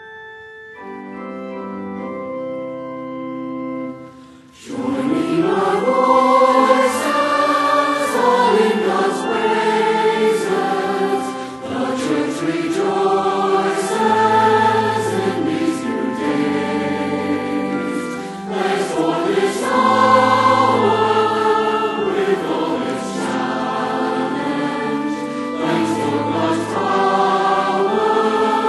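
Background music: held organ chords for the first few seconds, then a choir singing from about four and a half seconds in.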